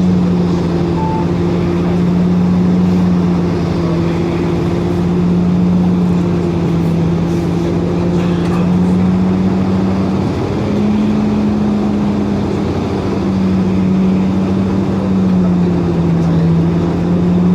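Inside a 2004 Orion VII hybrid-electric city bus underway: a steady drivetrain drone with a strong hum that shifts slightly in pitch, stepping up about ten seconds in, over road rumble.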